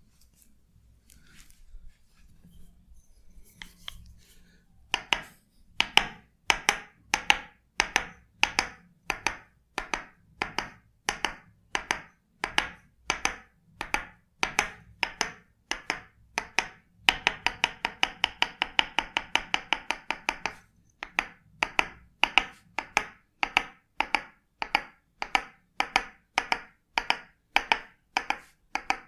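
Rhythmic percussive massage tapping: after a few nearly quiet seconds, sharp strikes land steadily about every half second. About seventeen seconds in they break into a fast flurry for a few seconds, then settle back to the steady beat.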